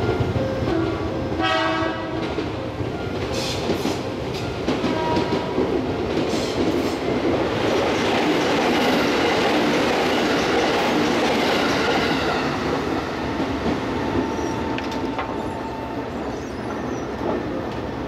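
Electric commuter train passing over a level crossing: a short horn blast about a second and a half in, then wheels clacking over rail joints and a rushing run-by noise that peaks midway and fades near the end.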